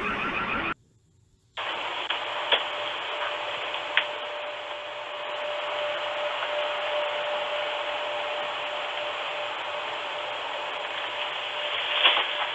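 Steady static-like hiss of a doorbell camera's microphone, with a faint steady hum and two small clicks. Less than a second in, a rapid repeating chirp cuts off, followed by a moment of dead silence before the hiss begins.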